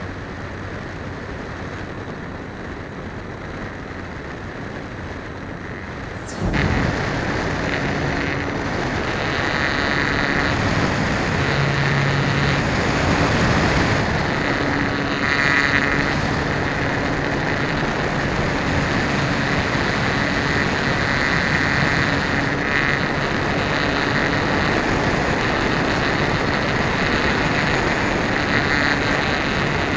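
In-flight sound from a camera on an E-Flite Apprentice S15e electric RC plane: wind rushing over the microphone, with the brushless motor and propeller whining through it. About six seconds in the sound jumps suddenly louder, and the motor's whine then comes and goes.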